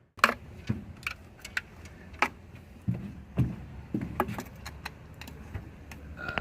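Metal hand tools and parts clinking and clattering: a dozen or so sharp, irregular clicks and knocks, with a steady low hum underneath.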